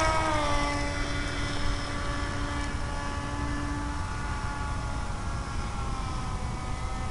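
Skywalker 1880 FPV plane's SunnySky 2820 brushless electric motor and 12x6 propeller running at climb power just after takeoff: a steady pitched whine with overtones that slowly fades and dips slightly in pitch.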